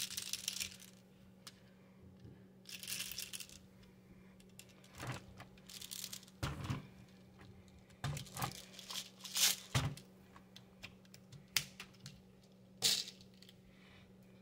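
Faint rattling of plastic airsoft BBs being poured from a plastic funnel into the airsoft gun, followed by a scattering of short plastic clicks and knocks as the gun is handled.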